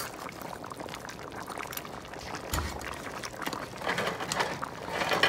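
A spoon stirring a thick okra and palm-oil stew in a metal pot: the liquid sloshes and squelches, with scattered clicks throughout and louder sloshing about four and five seconds in.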